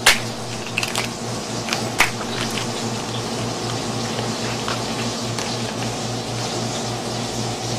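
Cooked Caribbean spiny lobster shell cracking as the tail is twisted off the body and peeled, a few sharp cracks in the first two seconds, over a steady background hum.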